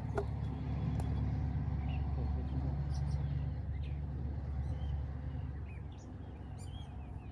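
A motor engine hums steadily, easing off about five to six seconds in, while small birds chirp.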